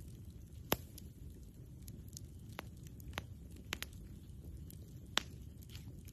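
Wood campfire crackling: a few sharp pops and snaps, the loudest about a second in and again near the end, over a low steady rumble.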